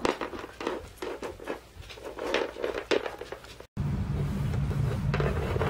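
Small plastic toy figurines being handled, with scattered light clicks and knocks as they are set down and moved on a wooden tabletop. After an abrupt cut, about two thirds of the way in, a steady low hum takes over, with a few more faint clicks.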